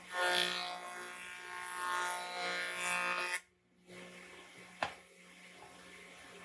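A small electric motor, likely a handheld power tool, running with a steady many-toned whine for about three seconds, then cut off abruptly. Fainter workshop noise follows, with a single sharp click.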